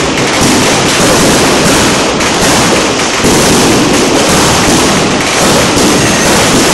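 Aerial fireworks bursting in a loud, dense, unbroken barrage of bangs and crackles.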